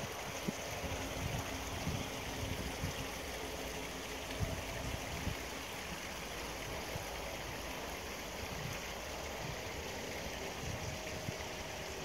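Steady, even outdoor rushing noise, with irregular low rumbles underneath.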